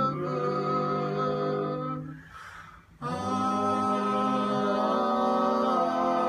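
Barbershop quartet of four men singing a cappella in close harmony, holding long chords. The first chord fades out about two seconds in, and after a brief pause a new held chord begins.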